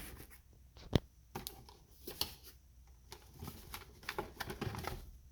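Packaging being handled while unboxing: scattered light clicks and rustles of cardboard and plastic, with one sharp click about a second in.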